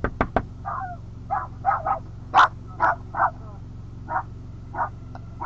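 A dog barking: about ten short, separate barks, unevenly spaced. A quick series of sharp knocks opens it, over a steady low musical drone.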